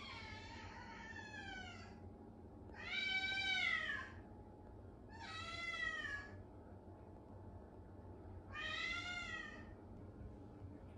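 Ragamuffin cat meowing four times, each meow drawn out and rising then falling in pitch, the second the loudest. It is calling from just outside the closed bathroom door.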